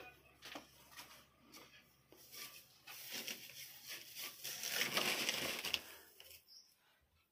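Crunching and scuffing with scattered sharp clicks, building to a louder rustling stretch about three seconds in and dying away about three seconds later.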